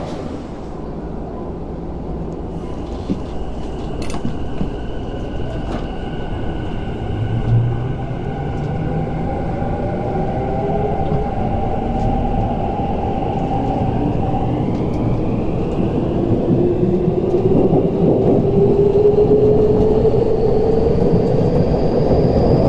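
Tokyu 5050-4000 series train's Hitachi IGBT VVVF inverter and traction motors accelerating: a rumble of running under several whining tones that start climbing in pitch about a third of the way in and keep rising, growing louder throughout.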